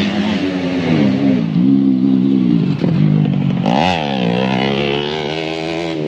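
Motocross dirt bike engine revving up and down through a bermed dirt corner, its pitch climbing sharply and then falling about four seconds in as the bike passes close.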